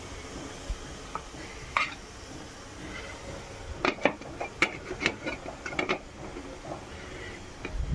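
Light metallic clinks and knocks of an aluminium idli stand being handled as stuffed brinjals are set into its moulds, scattered at first and then in a quick cluster midway. A low steady hum runs underneath, and there is a dull thump near the end.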